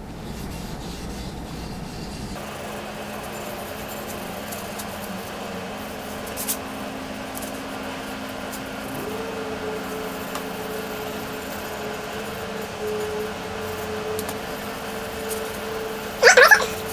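A steady mechanical hum with faint held tones, which shifts slightly about two seconds in. A brief sharp sound comes near the end.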